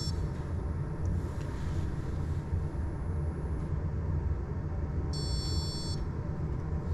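Prusa XL 3D printer humming steadily and low from its fans and motors during its load-cell calibration. About five seconds in, its buzzer gives one short high beep.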